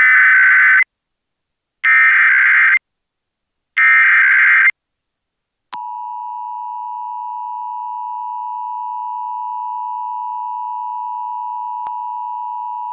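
Emergency Alert System SAME header: three short bursts of screeching digital data tones, about two seconds apart, opening an EAS test alert. After about a second's pause, the steady two-tone EAS attention signal (853 and 960 Hz) sounds.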